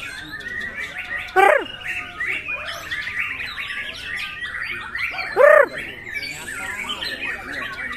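Murai batu (white-rumped shama) singing a fast, unbroken run of varied chirps and warbles. Two loud, short arched cries stand out, about a second and a half in and again about five and a half seconds in.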